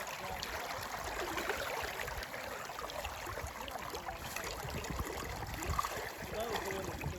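Creek water running steadily over rocks, a continuous rushing hiss.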